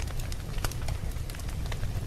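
Wood fire crackling in a fireplace: a steady low rumble of flames with irregular sharp pops and snaps.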